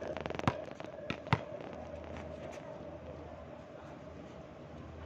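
Volleyball play on an outdoor hard court: a quick run of small crackling clicks at the start, then two sharp slaps of the ball being struck, about half a second and a second and a half in, followed by a steady background hush.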